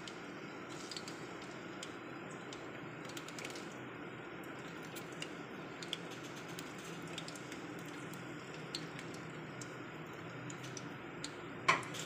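Chopped onions frying in hot oil in a metal karahi: a faint steady sizzle with scattered small pops and crackles. Two sharp knocks near the end.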